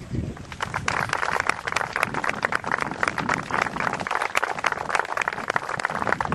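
A group of people clapping: a dense, uneven patter of hand claps that starts just after the beginning and keeps going.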